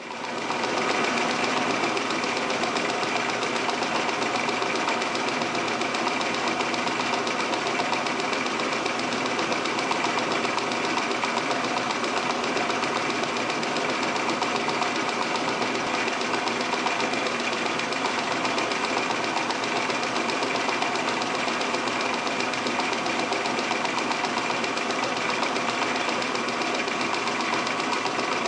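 Metal lathe starting up and running steadily under power, its drive and gearing giving a dense steady whine and rattle, while a cutting tool works a 3/4-inch rod.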